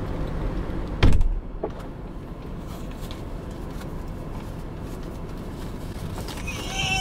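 Lamborghini Urus door shut with a single heavy thud about a second in, heard from inside the cabin over the low steady hum of the car left running.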